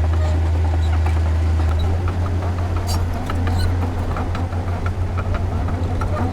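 Heavy earthmoving machine's diesel engine running with a deep, steady hum that turns into a fast pulsing beat about two seconds in. Scattered clicks and clanks sound over it.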